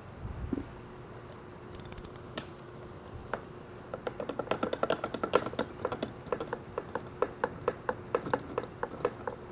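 Ratchet wrench clicking as a bolt in a balance beam's steel bottom plate is spun loose. A regular run of sharp metal clicks, about five a second, starts about four seconds in, after a few light knocks of tool on plate.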